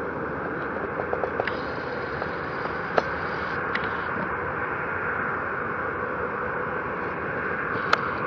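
Airbus A320 jet engines at taxi power, heard from a distance as a steady rushing hum. A few small ticks come about a second in, and there are sharp clicks about three seconds in and near the end.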